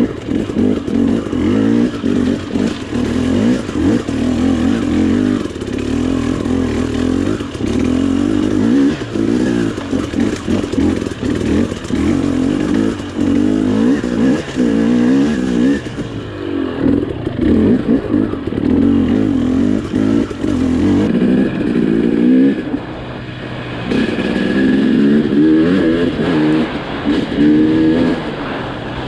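KTM dirt bike engine running under constantly changing throttle, the revs rising and falling again and again as the bike is ridden slowly over rough single track. It eases off for a few seconds twice, about halfway through and again a little later.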